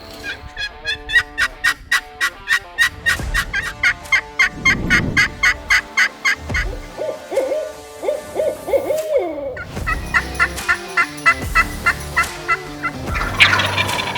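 Wild turkey calling: a long run of quick, evenly paced calling notes, a rolling gobble about seven seconds in, then another run of quick notes.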